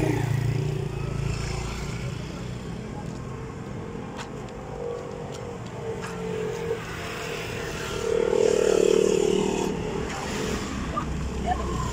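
Street traffic: motorcycles and cars passing on the road. An engine goes by close right at the start, and another passing vehicle grows louder about eight seconds in.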